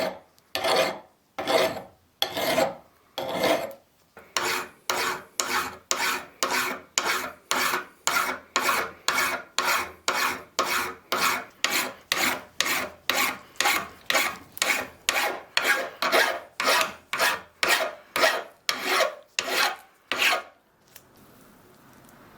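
Hand filing: a file is drawn in regular rasping strokes. They start at about one a second and quicken to about two a second, then stop near the end.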